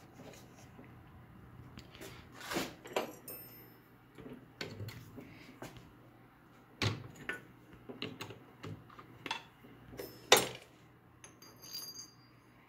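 Scattered metallic clinks and knocks as a three-jaw chuck is loosened with its chuck key and a steel cartridge case is pulled from its jaws. The loudest knock comes about ten seconds in, followed by a brief high metallic ring.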